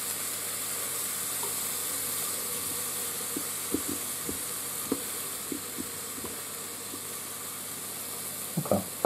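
Sliced mushrooms sizzling steadily in olive oil in the non-stick inner pot of an Aroma 20-cup digital multicooker on its sauté setting. A spatula turning them gives light clicks through the middle, and a brief louder sound comes near the end.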